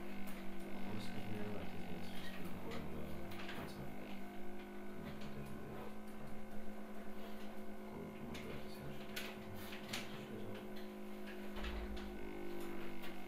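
Steady electrical mains hum, with a few light clicks and taps.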